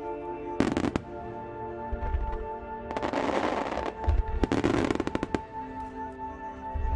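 Fireworks going off: several spells of rapid crackling, with low booms about two, four and seven seconds in, over music with steady held tones.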